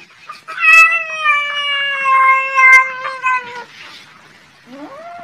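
A domestic cat giving one long, drawn-out meow of about three seconds that slowly falls in pitch.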